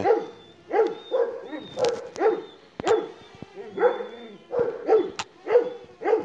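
Kangal-type Anatolian shepherd dog barking repeatedly at a drone hovering close overhead, about two deep barks a second. The barking is a hostile reaction to the drone.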